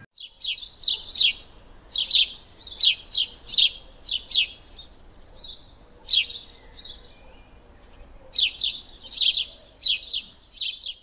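Bird chirping: runs of quick, high, downward-sweeping chirps with short pauses between them.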